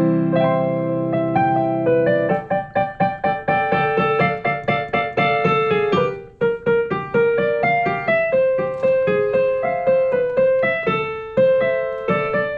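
Background piano music: a sustained chord at the start, then a quick run of repeated notes from about two seconds in.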